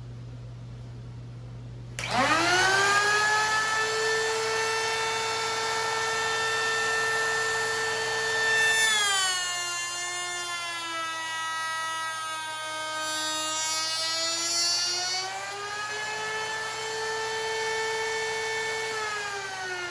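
A table-mounted router spins up about two seconds in and whines at a steady pitch. A few seconds later its pitch sags as the bit cuts across the end grain of a board pushed through in a coping sled and into the sled's sacrificial fence. The pitch recovers once the board is through, then begins to fall near the end as the router winds down.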